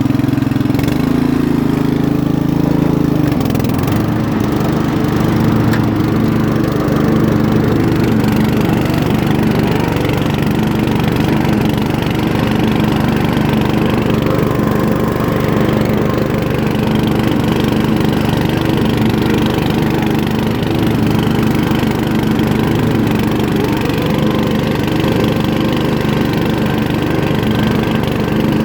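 A 2006 MTD riding lawn mower's 13.5-horsepower engine running steadily, with a brief change in pitch about three seconds in.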